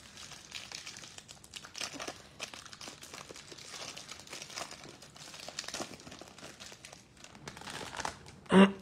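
Clear plastic wrapper of a Panini Select basketball card hanger pack crinkling as fingers pick at it and peel it open: a run of irregular crackles.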